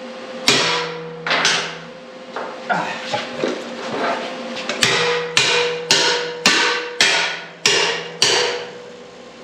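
Hammer blows on a thick steel door plate, bending it over the tack-welded door bars of a race car's cage: about a dozen sharp strikes, coming faster in the second half, the steel ringing after each blow.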